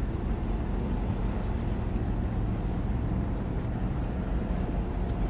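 Steady low rumbling ambience on the open upper deck of a docked cruise ship: wind on the microphone mixed with a low ship hum, without breaks.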